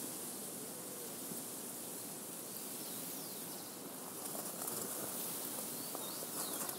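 Wind rustling through a field of ripe wheat, a steady hiss, with a few faint high bird chirps and light ticks from the stalks in the second half.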